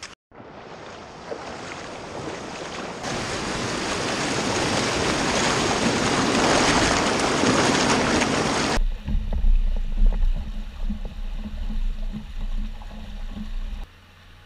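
Creek water rushing over rocks in a small rapid, close to the microphone, a full hiss that grows louder. About nine seconds in, the hiss gives way suddenly to a muffled low rumble that swells and dips, which stops abruptly near the end.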